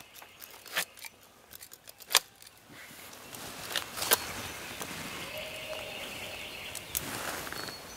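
Footsteps crunching through dry leaf litter as hunters creep through the woods, with a few sharp twig snaps and clicks in the first half and steadier rustling of leaves and clothing after that.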